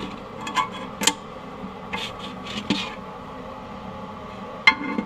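A few sharp metal clicks and scrapes as vice grips (locking pliers) are fitted and adjusted on a rusted toilet tank bolt, one click near the end ringing briefly. Under them runs the steady hum of a bathroom exhaust fan.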